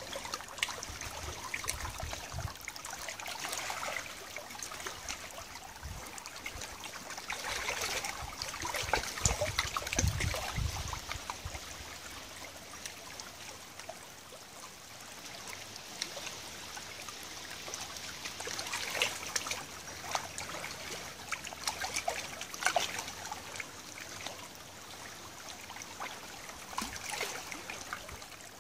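Shallow tidal river water trickling among stones, full of small splashes and clicks. A brief low rumble comes a couple of seconds in and another about ten seconds in.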